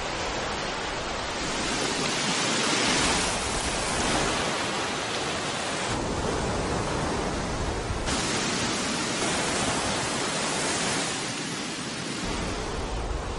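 Ocean surf washing onto a beach: a steady rushing that swells and eases, its hiss dulling for about two seconds midway.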